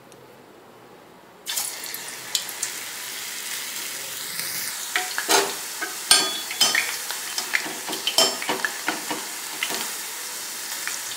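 Raw potato slices deep-frying in hot oil in a steel pot. After a quiet first second and a half, the oil starts sizzling suddenly and keeps up a steady sizzle with frequent pops and crackles.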